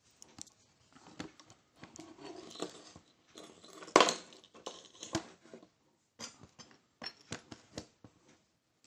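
Handling clatter on a cluttered workbench: a string of separate clicks, knocks and light clinks of small tools and parts being moved, with one louder knock about four seconds in.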